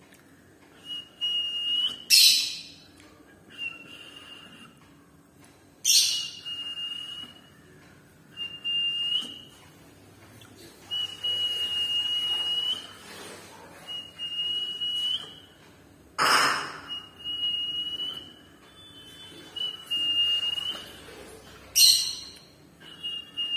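Peach-faced lovebird giving four short, loud, shrill calls, a few seconds apart. Between them a steady high whistled note repeats about every two seconds, each note ending in a slight upward flick.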